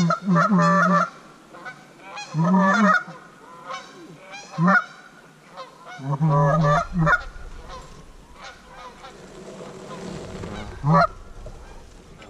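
Geese honking and clucking close by in quick clusters of short calls, busiest in the first three seconds and again around six seconds in, thinning to a single honk about eleven seconds in.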